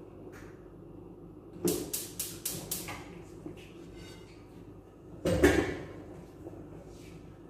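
Gas stove's spark igniter clicking five times in quick succession, lighting a burner, followed a few seconds later by a loud clank of metal cookware set down on the burner grate.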